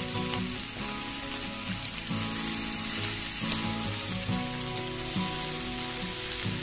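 Masala-coated chicken pieces frying in a pan, a steady hissing sizzle, with soft background music underneath.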